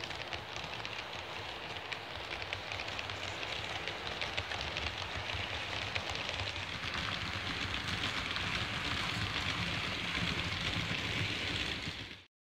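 Märklin H0 model trains running through a station, their wheels rattling over the track in a steady rushing with many fine clicks. The sound cuts off abruptly near the end.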